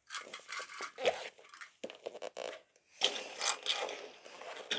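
Irregular rustling, scraping and clicking of handling noise close to the microphone, with a brief squeak about a second in and a denser stretch of rubbing about three seconds in.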